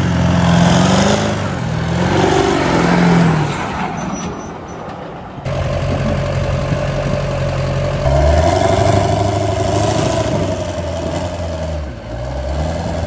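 Big truck engine revving up and down, its pitch climbing and dropping in stages, with an abrupt change in the sound about five and a half seconds in.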